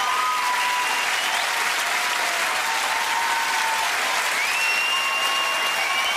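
Large studio audience giving a standing ovation: dense, steady applause, with long high cheers held over the clapping.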